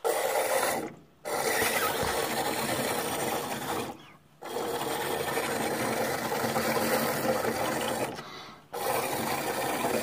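Air blown by mouth into a clogged Rheem furnace condensate drain tube, bubbling and rattling through the water in the condensate trap. It comes in long blows of a few seconds each, broken by three short pauses for breath, the clog not clearing.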